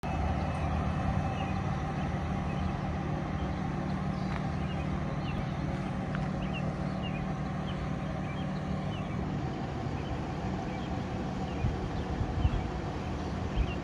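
Fire engine's diesel engine idling with a steady low hum, the apparatus waiting in the station bay with its warning lights on. Short high chirps of small birds recur over it.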